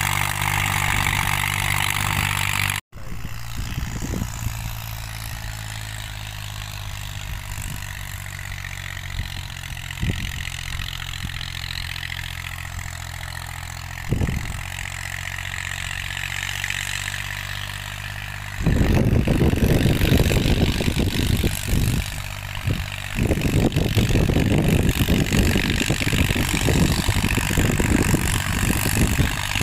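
Deutz-Fahr tractor's diesel engine running steadily while it pulls a tillage implement through dry soil, with a sudden cut about three seconds in. From about two-thirds of the way through, a loud, uneven low rumble rises over the engine, with brief gaps.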